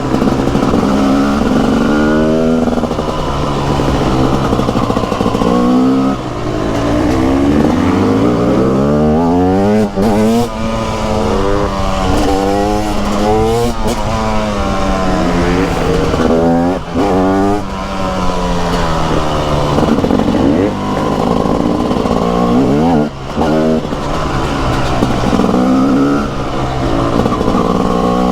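TM SMR 300 two-stroke single-cylinder supermoto engine under way, its revs climbing again and again with short drops in between as it pulls through the gears.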